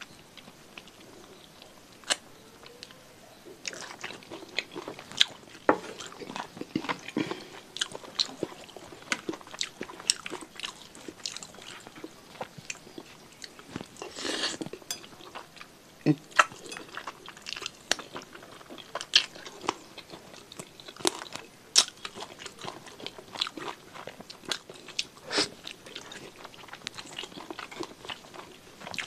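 Close-up eating sounds of chicken-feet satay (sate ceker) in sauce: chewing and crunching, with many sharp wet clicks and smacks. About fourteen seconds in comes a longer slurp as noodles are sucked in.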